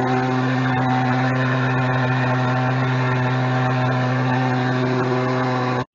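Backpack thermal fogger's pulse-jet engine running at full output while blowing fog, a steady low drone of unchanging pitch.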